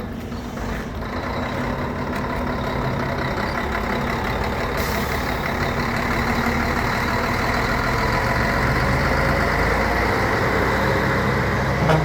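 Scania K113CL coach's rear-mounted diesel engine running steadily, growing gradually louder.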